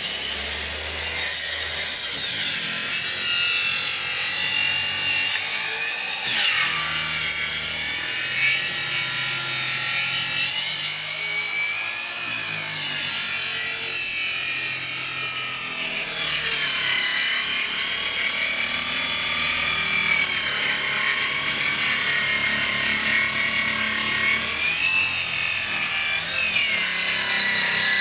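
Electric woodworking power tool cutting wood, running continuously with a high whine that slowly wavers up and down in pitch.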